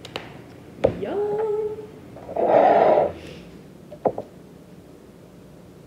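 Plastic ketchup squeeze bottle sputtering once, a short loud splutter of air and sauce about two seconds in. Near four seconds comes a light clink of cutlery on a plate.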